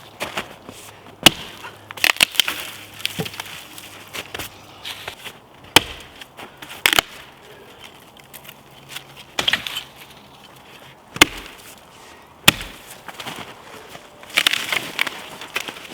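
Wood being chopped and broken: sharp single strikes one to a few seconds apart, a few of them loud, with crackling and rustling between them.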